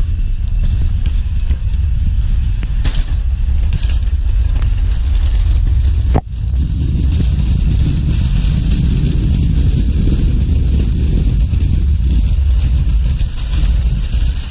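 Car cabin noise while driving: a steady low engine and road rumble with tyre hiss. The sound drops out abruptly for a moment about six seconds in.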